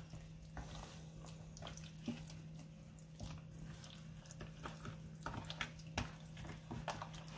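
Hands turning raw chicken drumsticks in an oily marinade in a plastic tub: faint wet squelches and scattered knocks of the pieces against the container. A steady low hum runs underneath.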